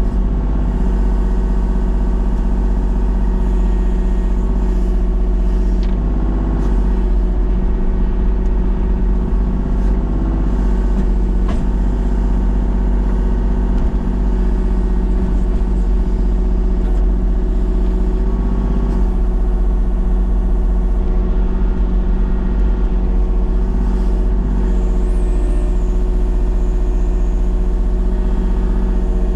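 Excavator's diesel engine running steadily at working speed while logs are being stacked, with a single light knock about a third of the way through.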